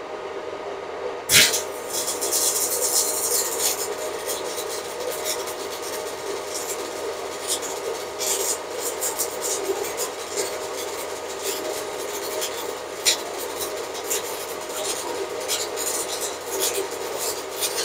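Stick-welding arc from a Weldinger EW 201 Digital Pro inverter welder burning a 3.2 mm electrode at 130 A on a steel pipe. The arc strikes with a sharp crack about a second in, then crackles and spits steadily with irregular pops.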